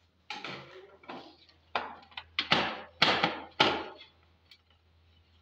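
Sheet-metal mounting plate on the back of a split AC indoor unit clattering and knocking as it is handled and unscrewed: about half a dozen sharp clanks, stopping about four seconds in.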